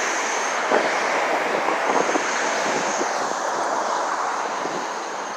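Steady road and wind noise of a moving car, an even rushing sound with no clear engine note.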